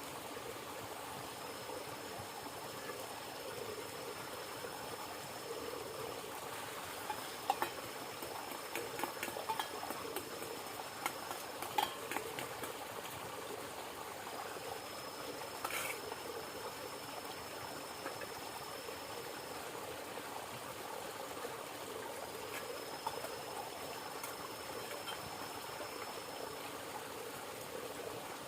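River water flowing steadily, with scattered light clicks and taps through the middle and a faint high tone that comes and goes.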